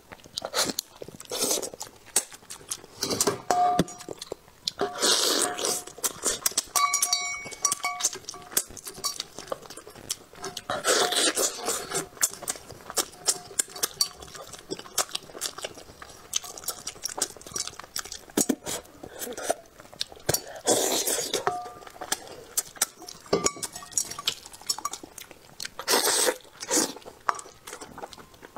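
Close-miked eating sounds of a spicy braised rooster head being gnawed: wet sucking, smacking and chewing with small crunches, and several louder slurps spread through.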